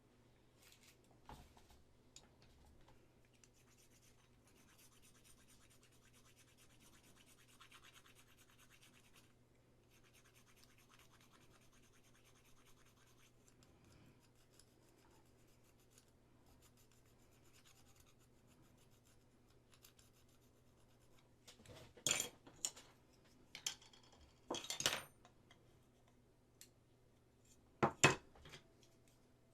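Small scraping and rubbing of hand work on resin model parts: a faint, fine rasping for several seconds, then a few short, louder scratches near the end.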